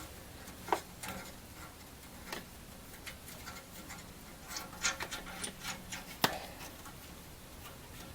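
Ratchet wrench tightening the exhaust flange nuts: scattered metallic clicks, with a short run of ratchet ticks in the middle and a sharp click shortly after.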